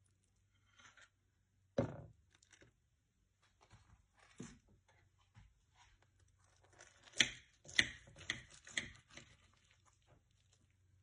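Kitchen utensils knocking and scraping against dishes as cooked chicken is handled and served: one louder knock about two seconds in, scattered light scrapes, then four sharp clicks about half a second apart later on.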